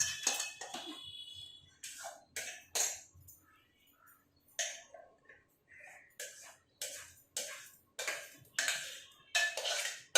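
A metal ladle scraping and knocking in a cooking pot: a series of short, irregular strokes, as when thick payasam is stirred.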